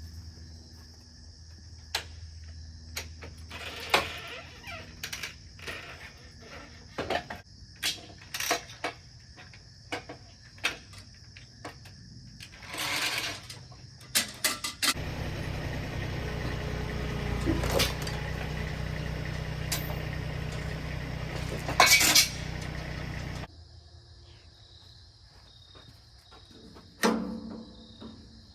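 Irregular metal clanks and knocks of chains and fittings as a log is released onto a bandsaw mill, with a motor running steadily for about eight seconds past the middle and then cutting off abruptly. Crickets chirp steadily throughout.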